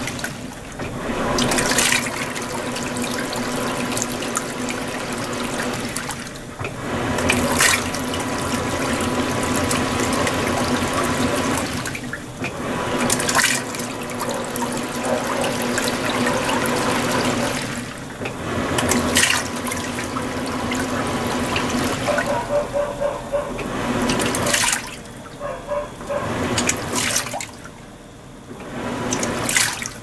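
Panasonic 16 kg top-loading washing machine (NA-FS160P3X) sloshing water through the load on its Super Delicado cycle. It churns in spells of about six seconds, each broken by a brief pause, over a faint steady hum, and the pauses grow longer near the end.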